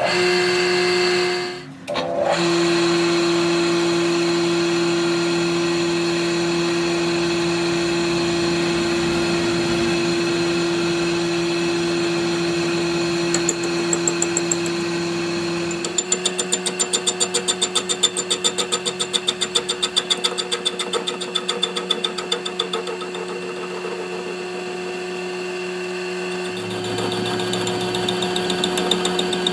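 Metal lathe running, its motor giving a steady hum with a brief drop near the start. From about halfway a lathe tool cuts into the spinning broken crankshaft piece, adding a rapid rhythmic rattle over the hum.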